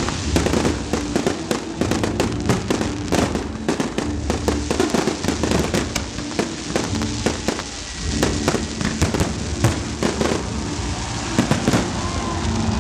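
Fireworks display: a rapid, irregular run of bangs and crackling reports, with music playing underneath.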